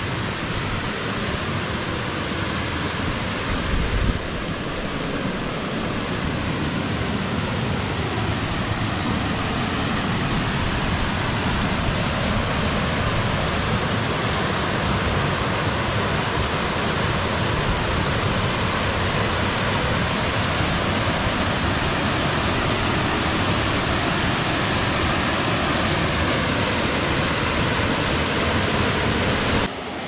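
Steady rushing of a low waterfall spilling over rock ledges into a pool, getting slightly louder as it comes closer. A brief thump about four seconds in.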